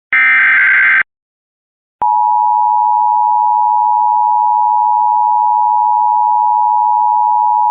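Emergency Alert System tones: a one-second screeching burst of the SAME data header, a second of silence, then a click and the steady attention tone, one unbroken high tone starting about two seconds in.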